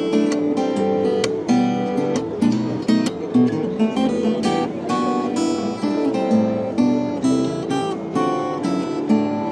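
Fonzo steel-string acoustic guitar played fingerstyle: picked melody notes over chords, with frequent crisp strummed attacks.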